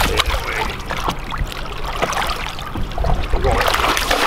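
Water splashing beside a boat as a small musky is released by hand and kicks off from the surface, the splashing heaviest near the end.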